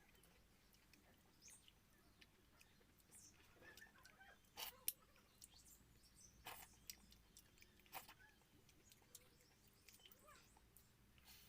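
Near silence with faint eating sounds: a few soft mouth smacks and clicks of someone eating watery rice with curry, the sharpest about five seconds in.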